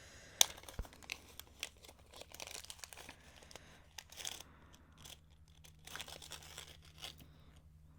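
Plastic zip-lock bag being handled, crinkling and rustling, with a sharp click about half a second in.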